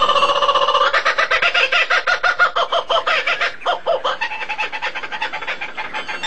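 A bird calling in a rapid run of quickly repeated notes, fading after about four seconds.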